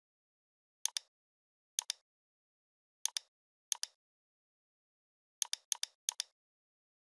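Computer mouse button clicks, each a sharp press-and-release pair. Four come about a second apart, then three in quick succession near the end, with dead silence between them.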